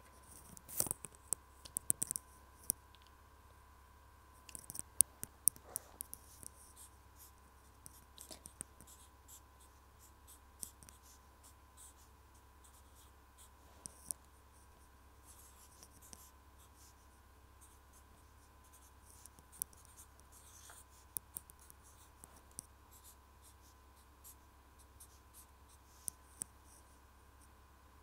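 Scattered light clicks and scratchy taps from hands working close to the microphone, coming in irregular clusters, over a faint steady high tone.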